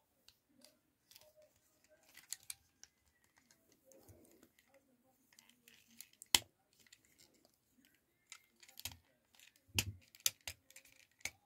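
Faint, irregular clicks and taps of hard plastic as a Transformers Studio Series 86 Brawn figure is handled and its parts are pushed so their tabs seat into ports. The sharpest click comes about six seconds in, with a cluster of clicks near the end.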